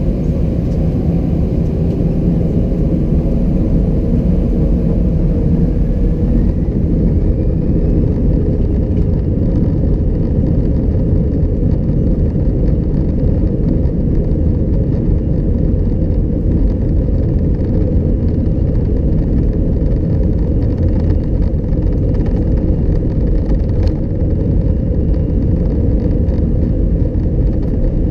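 Steady, loud low rumble of an Airbus A320-211's CFM56 engines and airflow, heard inside the passenger cabin. A faint rising whine is heard between about five and nine seconds in.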